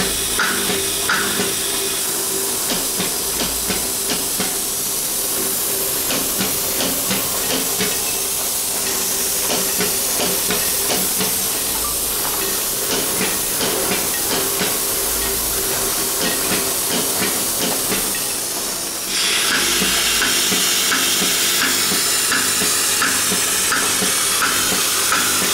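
Automatic through-hole PCB component insertion machine running: a steady air hiss with rapid regular mechanical clicking, and short repeating beeps or squeaks about twice a second. It gets suddenly louder about three-quarters of the way through.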